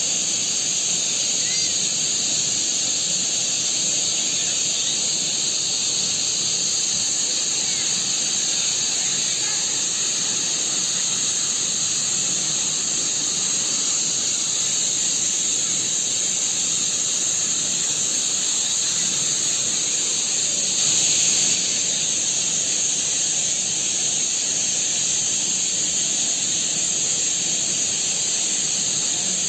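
Flood water rushing and churning as it pours through a dam's open radial spillway gates: a steady, loud rush with no let-up, briefly swelling louder about two-thirds of the way through.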